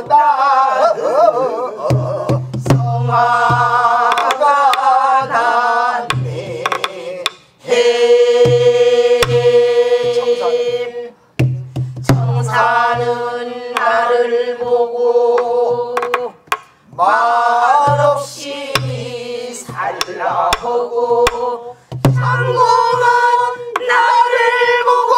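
A group of men and women singing a Namdo (southwestern Korean) folk song in unison, holding long wavering notes in phrases. Buk barrel drums beaten with a stick accompany them with deep thumps and sharp clicks.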